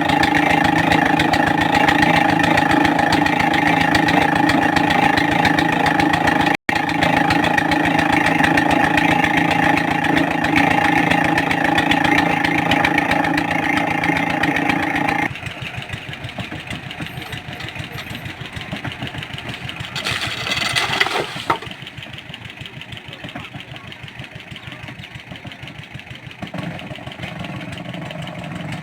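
Engine of a water-well boring rig running steadily at a constant speed. About halfway through, the sound drops abruptly to a quieter engine sound, with a brief louder surge a little later.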